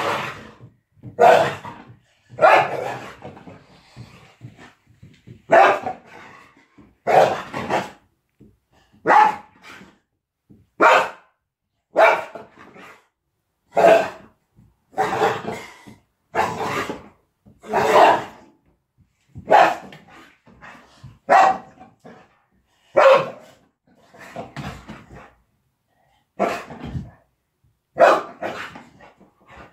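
Two dogs play-fighting, one giving repeated barks and growls roughly every second and a half.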